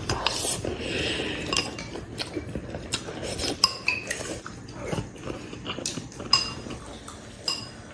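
Wooden chopsticks clicking and scraping against ceramic rice bowls while eating: scattered irregular clicks and clinks, some with a brief ring.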